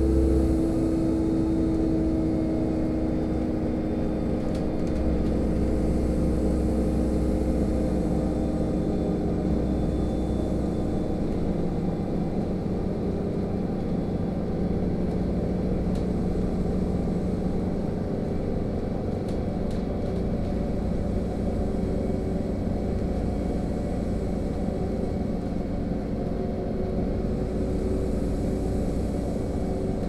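LiAZ-5292.65 city bus running along the road, heard from inside the passenger cabin: a steady drone of engine and tyre noise.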